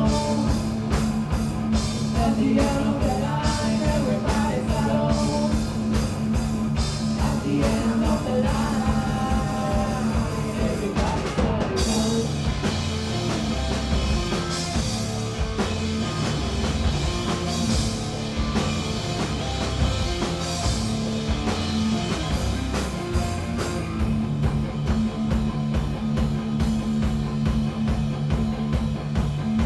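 Live punk rock band playing: steady, driving drums and guitar, with singing over roughly the first ten seconds, a brief break near the middle, then the band playing on.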